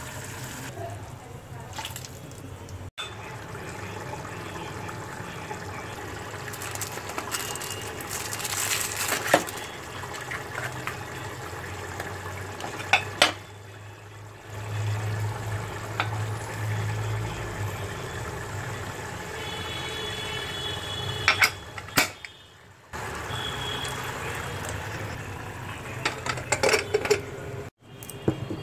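Home kitchen cooking sounds: steel pots, a pressure-cooker lid and spoons clinking and scraping, with liquid sounds. A steady low hum runs underneath, broken by a few sharp clatters.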